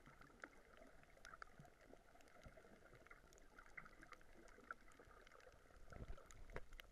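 Faint underwater ambience over a shallow coral reef: a constant fine crackle of scattered clicks over a soft hiss, with a low muffled thump about six seconds in.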